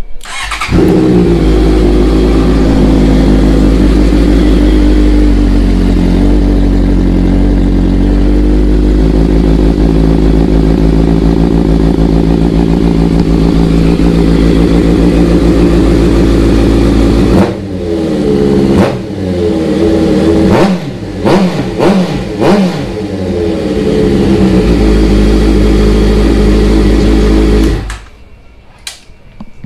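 Honda CBR650F's inline-four engine firing up and idling steadily through its exhaust. A little past halfway it is revved in several quick blips that rise and fall, then it drops back to idle and is switched off abruptly near the end.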